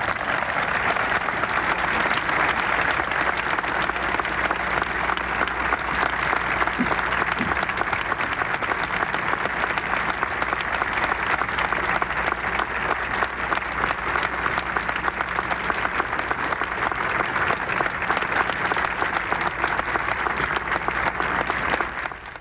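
Large crowd applauding steadily, a dense patter of many hands clapping, which dies away near the end.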